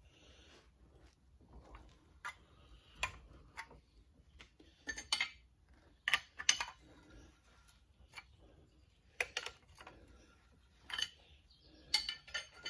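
Light, irregular metallic clinks and ticks from work on the steel liner puller and its threaded rod as the freed cylinder liner is drawn out of the block.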